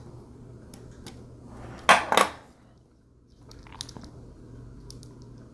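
Hard plastic clicks and clacks from handling a flexible ball-jointed tripod and its phone clamp, with two loud sharp clacks about two seconds in and a few lighter clicks after.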